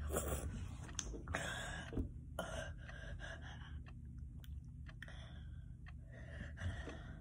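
A boy gasping and breathing hard through an open mouth, a string of short hissing breaths about once a second, from a tongue burning after an extremely spicy gummy bear.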